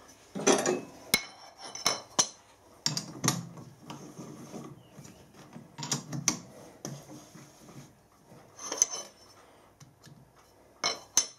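Four-jaw lathe chuck being adjusted by hand: a chuck key clicking and clanking in the jaw screws, and a metal plate knocking against the steel jaws as it is set in place. Irregular metallic knocks and rattles with a slight ring, the sharpest clicks about a second in, around six seconds and near the end.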